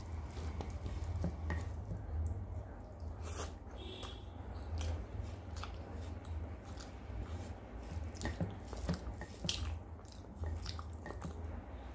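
Fingers mixing and mashing rice with a vegetable curry on a plate, giving scattered soft wet clicks and squishes over a steady low hum.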